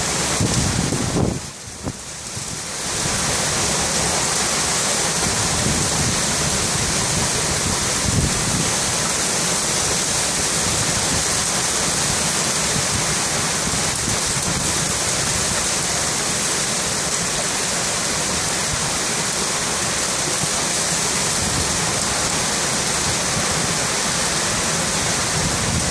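Heavy wind-driven rain from a severe squall line, pouring as a steady, dense hiss. It dips briefly about two seconds in, then holds even.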